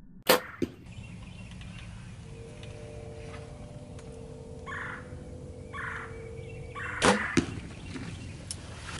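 Compound bow being shot at a wild turkey: a loud, sharp crack of the release about a third of a second in, with a smaller knock just after it. A second loud pair of sharp cracks comes about seven seconds in. Between them are a faint steady hum and two short rasping sounds.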